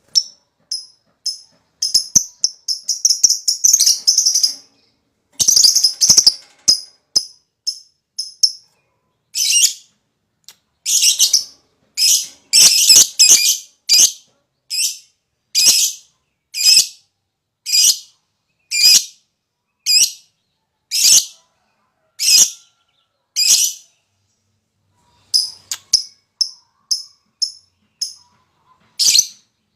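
Lovebird calling: short high chirps with two rapid chattering runs in the first few seconds, then a steady series of harsh single calls about one a second, and more quick chirps near the end.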